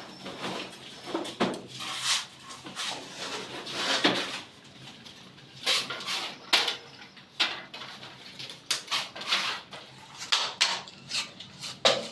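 Irregular scrapes and clinks of metal hand tools working sand-cement mortar and striking metal mortar pans.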